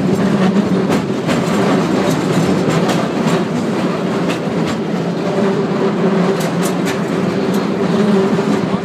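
San Francisco cable car running along its rails: a steady rumbling hum with a low held tone, and irregular clicks and clacks scattered through it.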